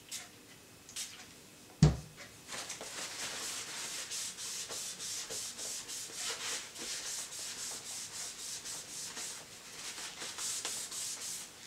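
A cloth rubbed briskly back and forth over a motorcycle helmet's plastic shell, about four strokes a second, wiping it clean. Before it there are a couple of short sprays from a spray bottle and one sharp knock about two seconds in, the loudest sound.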